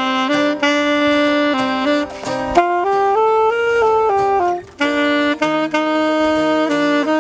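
Saxophone playing an improvised melody note by note over acoustic guitar accompaniment, with a brief breath gap a little past the middle.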